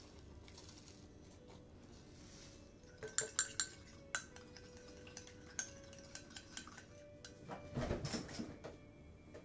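A metal spoon clinking and tapping against a small glass bowl while stirring a sauce mix: a quick run of sharp ringing clinks about three seconds in, then lighter taps. A brief rustling noise comes near the end.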